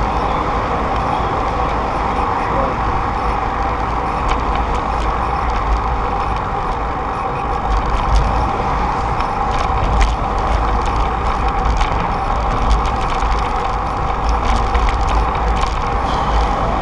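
Steady rush of freeway traffic from the bridge deck beside the bike path, under a low, uneven rumble of wind on the microphone of a camera riding along on a bicycle.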